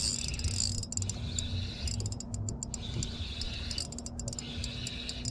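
Spinning reel being cranked steadily, its gears turning with a fine, continuous clicking, as a hooked catfish is reeled in.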